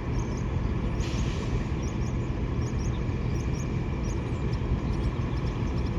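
Steady low hum and rumble of a vehicle, with faint short high chirps of small birds scattered throughout.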